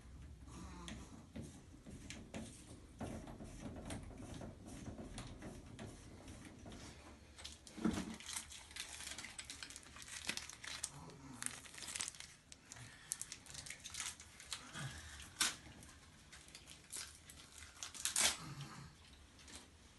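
Hands handling shower head parts and packaging: crinkling and tearing with scattered clicks, and a few sharper knocks about eight, fifteen and eighteen seconds in.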